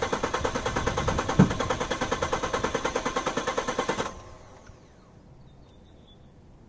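Ford F-150 EcoBoost twin-turbo V6 being cranked by its starter: a rapid, even chugging of about ten pulses a second, with a single thump about a second and a half in. It stops abruptly about four seconds in without the engine catching, a failed start.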